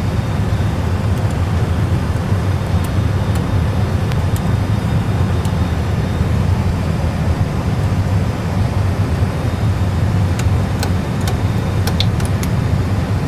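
Steady low rumble of an Airbus A320's idling engines and taxi noise heard from the cockpit, with scattered sharp switch clicks, more of them in the last few seconds, as the crew sets overhead and pedestal controls for the after-landing clean-up.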